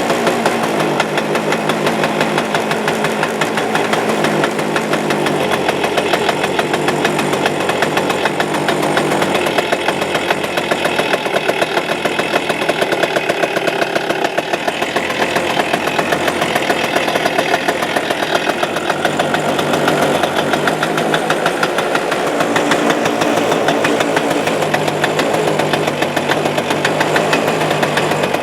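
Suzuki Address 110 two-stroke single-cylinder scooter engine running steadily at idle just after a start, with its variator roller weights removed. A rattling knock in the motor is still there without the rollers, so they are not its cause.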